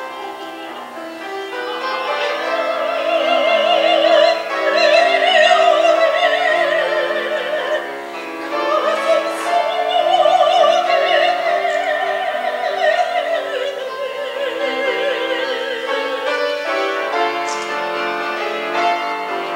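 Soprano singing a Korean art song in classical style, long held notes with wide vibrato, accompanied by a Samick grand piano. The voice comes in about two seconds in and stops a few seconds before the end, leaving the piano playing alone.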